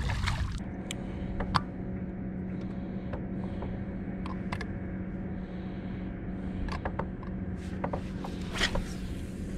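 Bow-mounted electric trolling motor running with a steady low hum that comes on about half a second in, with scattered light clicks and knocks of rod, reel and gear being handled on the boat deck.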